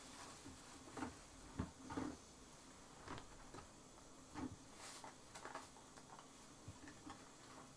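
Faint, scattered light taps and clicks, about a dozen in all, from small objects being handled and set down, with a quiet room tone between them.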